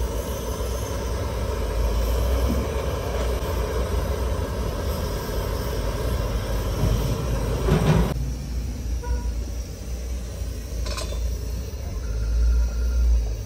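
Handheld butane torch and gas ring burner running together with a steady rushing flame noise while heating a small copper sheet. About eight seconds in the torch's hiss stops, leaving the burner's low rumble, and a short metallic click follows a few seconds later.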